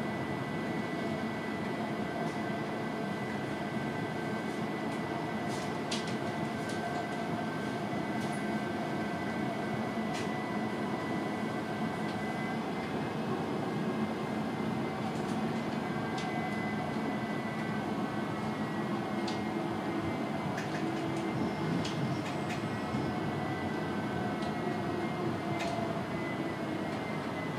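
Electric tram running along its track, heard from inside the car: a steady rumble with a high whine and a few scattered clicks. The whine dips slightly near the end.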